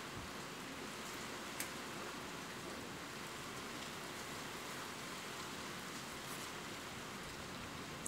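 Steady rain falling, an even wash of noise with a few scattered drop taps, one sharper tap about a second and a half in.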